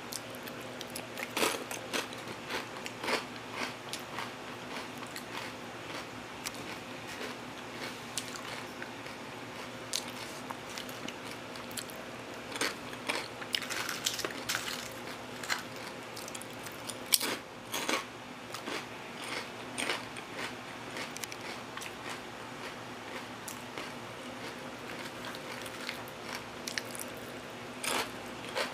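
Kettle-cooked potato chips coated in cheese dip being bitten and chewed close to the microphone: irregular crunches and crackles, busiest about halfway through.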